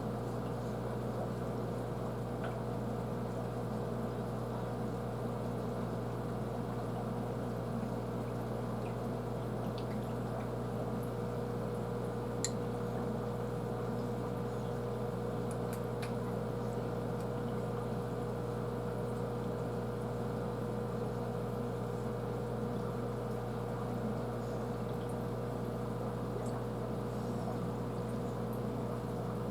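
Aquarium pump humming steadily with water trickling in the tank, and a few faint ticks about halfway through.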